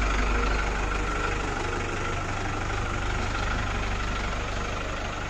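A truck engine idling steadily, a low hum with a constant high whine over it.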